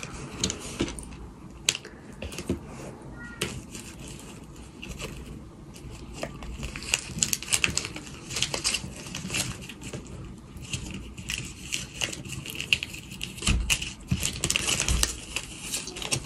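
Hands crinkling and folding wrapping around a pack of chewing gum: irregular rustling and crackling with scattered clicks, busier in the second half, and a couple of low knocks on the tabletop near the end.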